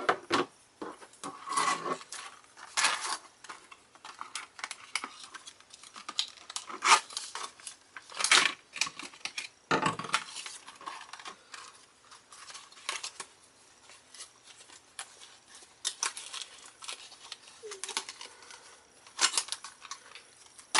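A fidget spinner's retail packaging being opened by hand: irregular clicks, snips and rustles as the package is cut, torn and handled.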